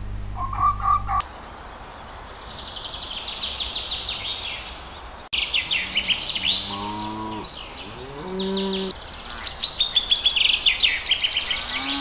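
Cows mooing twice, each call under a second, about halfway through, over continuous birdsong chirping.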